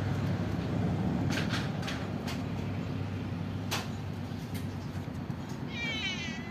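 A cat meowing once near the end, a high quavering call, over a steady low hum with a few light clicks earlier on.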